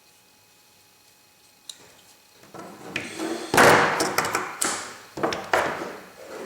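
Leatherman multi-tools being handled, with their tools folding and clicking: faint at first with a single click, then from about halfway on a run of loud rubbing and several sharp clicks.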